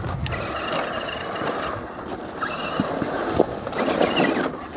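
Axial SCX10 RC crawler driving through wet slush and mud: its brushed 55-turn electric motor and gearing give a faint high whine over the noise of the tyres churning.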